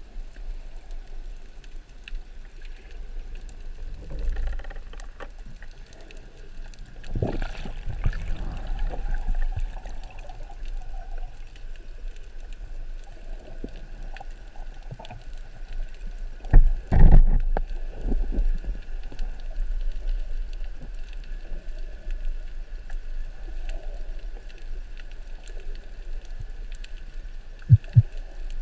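Underwater ambience recorded below the surface: a low, muffled water rumble with a steady faint hiss. Several dull thumps and bumps break through it, the loudest a little past halfway, and there are two short knocks near the end.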